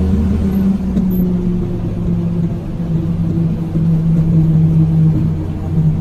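Engine of a vehicle running steadily as it drives along, a low hum over road rumble. A deeper rumble fades out within the first second.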